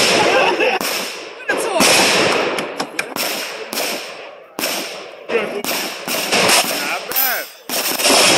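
A string of pistol shots fired at steel targets: about a dozen sharp reports at uneven intervals, some close together, each with a short decay.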